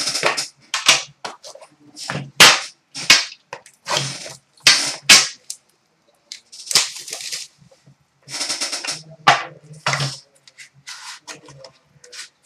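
Hands opening and handling a cardboard hockey card box and its packaging: an irregular run of sharp snaps, clicks and crinkles, some of them loud, with short gaps between.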